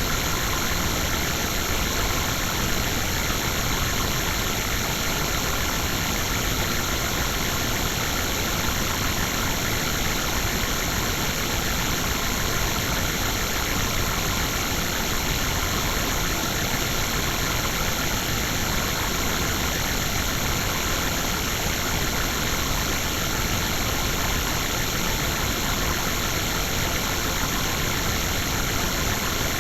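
A steady, unchanging electronic drone of processed noise with a constant hum, made by a ring-modulator style audio effect. Its level holds even throughout, with no breaks or events.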